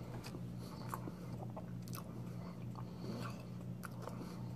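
A person chewing a mouthful of soft green tea pastry cake, with faint wet mouth clicks at irregular intervals over a steady low hum.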